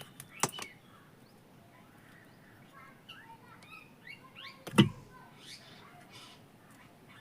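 A few sharp clicks and knocks from handling on the workbench, the loudest a single knock about five seconds in, with birds chirping faintly in the background.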